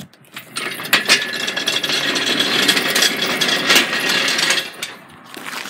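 Steel engine hoist rolled across concrete on its casters: a continuous rolling rattle that starts about half a second in and fades after about four seconds.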